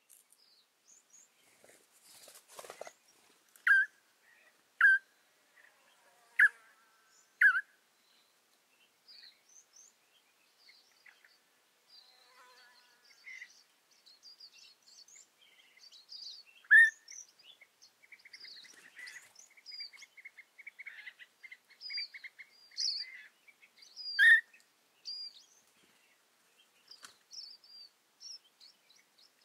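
Small birds calling and singing in dry scrub. The mix holds four loud, sharp notes that drop in pitch in the first eight seconds, many high chirps and short phrases, and a rapid trill from about 18 to 23 seconds.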